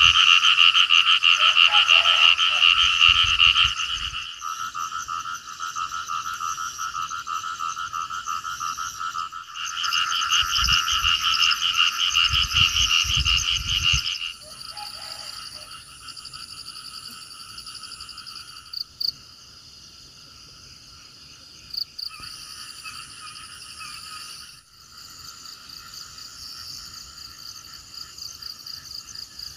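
A chorus of frogs croaking in fast, pulsing calls, loudest in the first few seconds and again around the middle, with a low rumble under the loudest parts. After about the halfway point it is quieter, and a higher, insect-like buzzing joins in.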